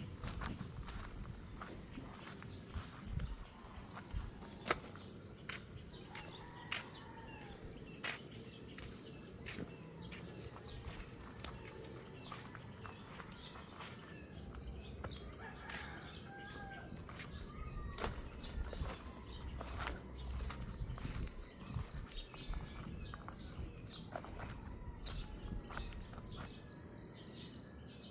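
Steady chorus of insects, a high pulsing trill throughout. Short bird chirps and occasional sharp clicks or knocks come through now and then.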